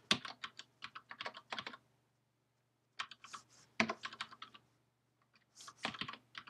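Typing on a computer keyboard in quick bursts of keystrokes, broken by short pauses of about a second.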